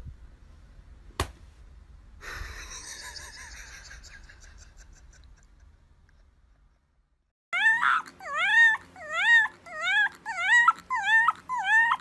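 Fluffy white puppy howling in a quick run of short, high yips, about two a second, each rising, dipping and rising again; it starts about seven and a half seconds in. Before that there is only faint rustling and one sharp click.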